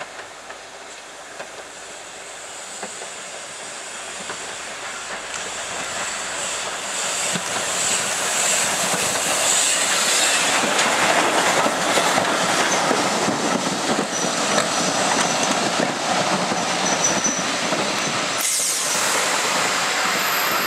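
Steam-hauled passenger train approaching and passing close by: locomotive and carriage wheels clattering over the rail joints, growing louder as it nears. A thin high wheel squeal comes in over the clatter in the later part.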